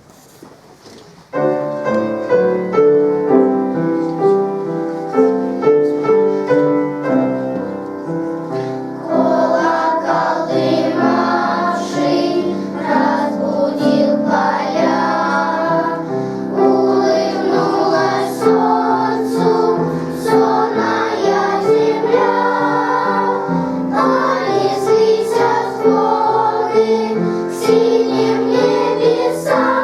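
A young children's choir singing a song with piano accompaniment. The piano plays alone at first, and the children's voices come in about nine seconds in.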